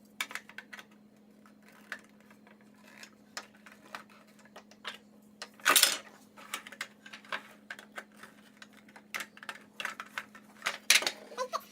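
Plastic pieces of a Play-Doh Barnyard Pals toy playset clicking and knocking together as it is assembled, with a louder clatter about six seconds in.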